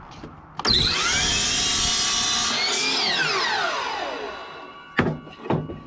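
Electric power saw cutting a wooden board to length. The motor starts sharply about half a second in and runs at a steady high whine for about two seconds, then winds down with falling pitch once it is switched off. Two short knocks come near the end.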